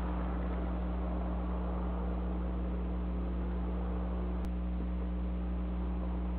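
Steady low hum under a constant hiss, with one sharp click about four and a half seconds in; no horn sounds.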